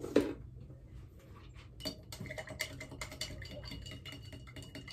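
A knock just after the start, then from about two seconds in a dense run of light ticks and clinks at a glass bottle as table salt is tipped into a vinegar and hydrogen peroxide mix.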